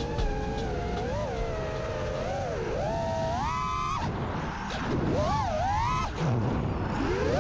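FPV quadcopter's brushless motors whining, the pitch rising and falling with the throttle, easing off briefly about four seconds in and again just after six.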